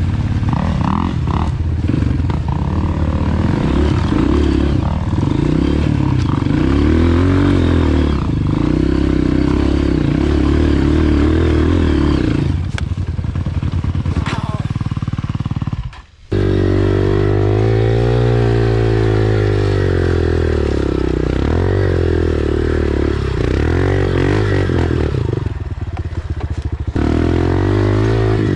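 Dirt bike engine running on a trail ride, its revs rising and falling with the throttle, with a brief gap about halfway through.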